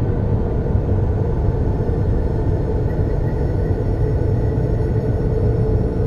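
Steady deep rumbling drone with a sustained mid tone held above it and a faint higher tone coming in about halfway through: an ambient space-style soundscape.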